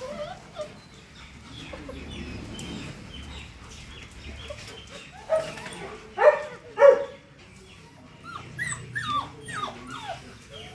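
Doberman puppies whining and yipping in short high cries and falling whimpers, with a few louder barks a little past the middle.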